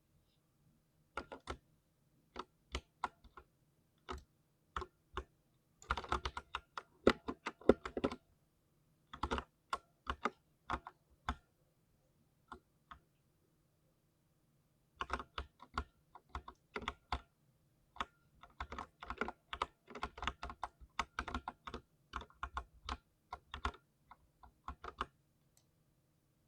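Typing on a 60% keyboard: bursts of quick, sharp keystrokes, with a few seconds of only scattered key presses about halfway through.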